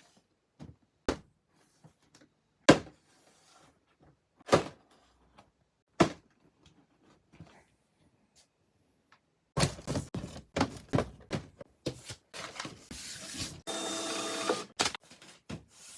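Handling noise from model kit boxes being moved and set down. A few separate soft knocks come first, then from about ten seconds in there is a quick run of clicks and taps with a rustling, scraping stretch near the end.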